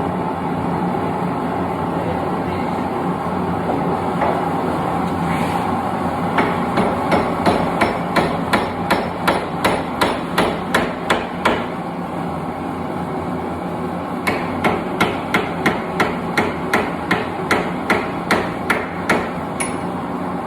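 Hand hammer forging a steel center punch on an anvil: two runs of even blows, about three a second, with a pause between them. A steady background hum runs underneath.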